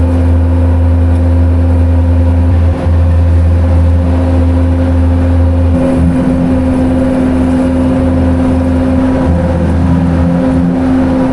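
Bobcat skid steer loader's diesel engine running, heard from inside the cab, with a steady whine over the engine. Its low rumble turns uneven about six seconds in.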